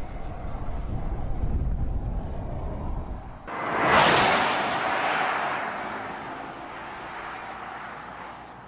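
A BMW 750Li saloon driving with a low rumble. About three and a half seconds in, the sound cuts suddenly to a loud rushing whoosh of the car passing close by, which peaks soon after and fades slowly as it drives away.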